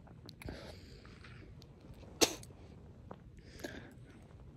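A man's single sharp, explosive cough about two seconds in, with hoarse, breathy gasps before and after it. It is part of a coughing fit brought on by a very large vape hit.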